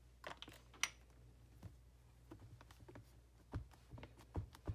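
Soft, scattered taps and clicks, about half a dozen, of a clear-mount rubber stamp being tapped on an ink pad and pressed onto cardstock in a Stamparatus stamping platform.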